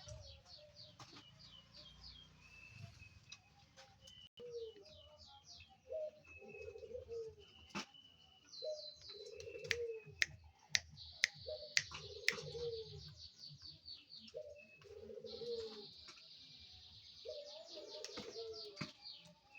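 Zebra dove cooing in short, low, repeated phrases, over rapid high-pitched trilling chirps from other small birds. Sharp clicks come several times about halfway through.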